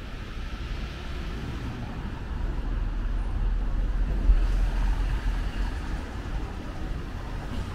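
City street traffic noise: a steady rumble of passing vehicles that grows louder in the middle and then eases, with a brief thump about four seconds in.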